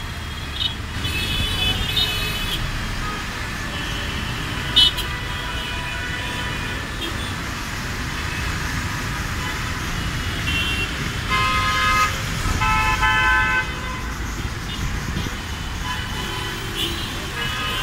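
Congested road traffic on wet pavement: a steady rumble of engines and tyres, with car horns honking now and then. Two longer horn blasts sound back to back about two-thirds of the way through, and a brief sharp sound stands out a little before five seconds in.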